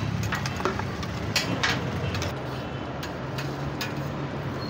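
Metal spatula clicking and scraping on a flat steel griddle (tawa), a string of sharp irregular clicks mostly in the first two seconds, over a steady low hum.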